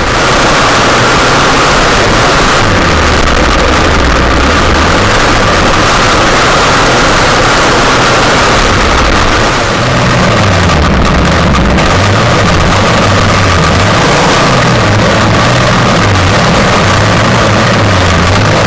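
1/6-scale RC car's petrol engine running hard, its revs rising and falling repeatedly, recorded close up from a camera mounted on the car. The sound drops briefly about halfway through.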